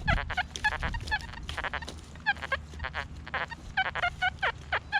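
A flock of geese honking: many short, overlapping calls, several a second.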